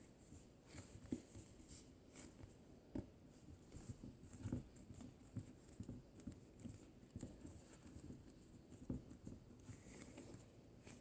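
Faint, irregular soft pats and squishes of slime being pressed and poked by hand.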